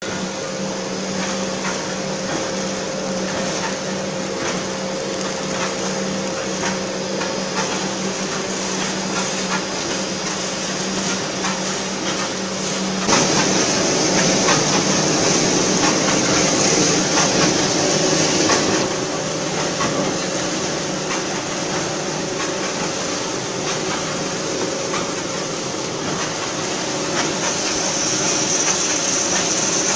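Spindleless wood veneer peeling machine and its veneer conveyor running: a steady mechanical hum with a constant low tone. About thirteen seconds in it turns abruptly louder and hissier, with the log being peeled between the rollers, and drops back about five seconds later.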